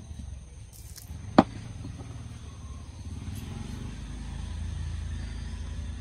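A single sharp knock of hard tableware, the glass or steel spoon on the wooden table, about a second and a half in. Under it runs a low rumble that grows louder over the second half.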